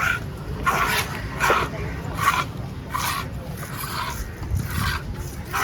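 A fish-cutting knife makes short, rhythmic scraping strokes across a small fish, about nine strokes at a little under one a second.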